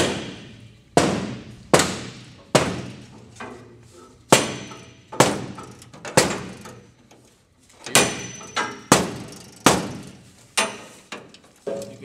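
Ball-peen hammer striking the sheet-metal body of a 1957 Chevy Bel Air, about one blow a second, each with a short metallic ring, with a pause of about a second midway: knocking the new floor pan and body panels into line.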